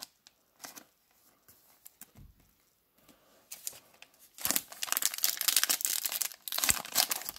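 Foil trading-card pack wrapper being crinkled and torn open: a few soft clicks, then dense crackling from about halfway through.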